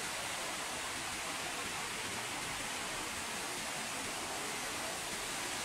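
Steady rush of a river cascading over rocks: an even, unbroken hiss of falling water.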